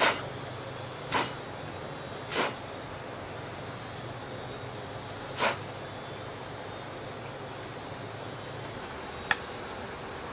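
Four short rustles of dry leaf litter as hands handle beetle grubs on the forest floor, over a steady background hiss, with one sharp click near the end.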